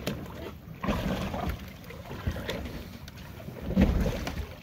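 Wind rumbling on the microphone over the sound of a boat at sea, coming in uneven gusts, strongest about four seconds in.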